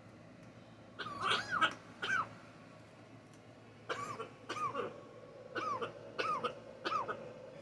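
Blue-and-gold macaw coughing: a run of short, separate coughs, a close pair about a second in, then about five more at regular intervals from about four seconds in.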